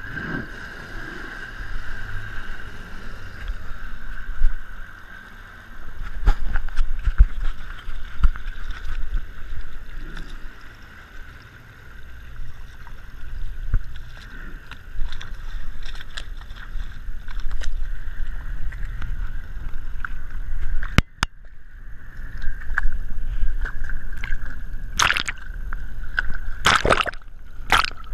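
Triton TR186 bass boat underway, with water rushing and slapping along the hull and a steady whine from its Mercury outboard, picked up through a GoPro's housing mounted low on the hull side. Water splashes strike the housing a few times near the end.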